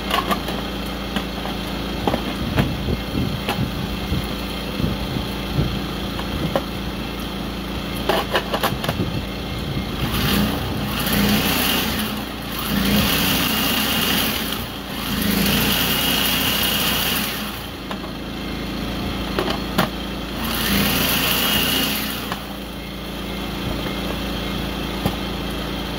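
Electric food processor run in about four pulses of a few seconds each, its motor whirring as the blade chops cooked bacon into crumbles. Before that come the clatter and clicks of the bowl and lid being handled, over a steady background hum.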